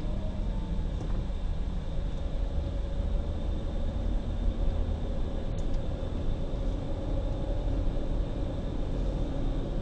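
Steady engine and road-noise rumble of a car driving along, heard from inside the cabin, with a faint steady whine over it.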